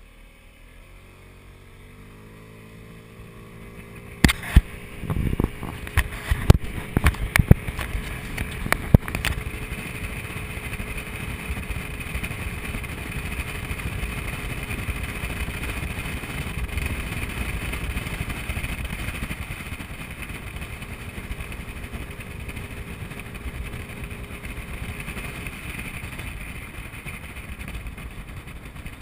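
Motor scooter engine revving up as the scooter pulls away, then running steadily at riding speed with wind noise. A run of loud, sharp thumps comes a few seconds in.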